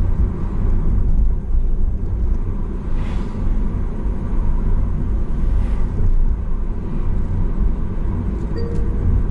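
Steady low rumble of engine and road noise heard inside a car's cabin while driving, with brief faint swells of hiss about three and six seconds in.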